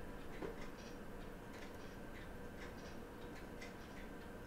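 Faint, irregular light clicks of tweezers touching the small wheels and plate of a Seiko VD53B quartz chronograph movement as the wheels are handled.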